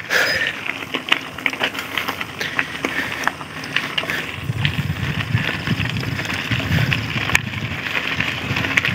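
Polygon Xtrada 5 mountain bike riding over a rough, potholed dirt track, with frequent clicks and rattles as it bumps along. A low rumble joins about four and a half seconds in.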